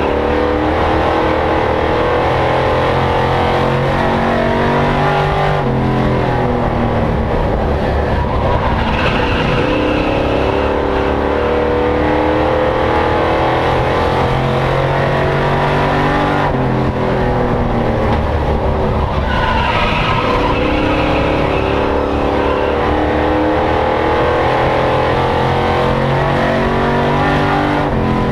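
Short-track stock-car racing truck's engine under racing throttle, heard from inside the cockpit. Its pitch climbs and falls several times as the truck accelerates down the straights and lifts for the turns.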